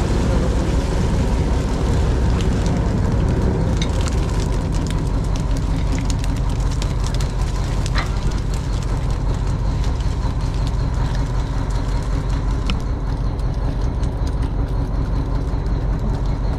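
Fishing boat's engine running steadily on deck, a loud, even drone, with a few scattered light clicks over it.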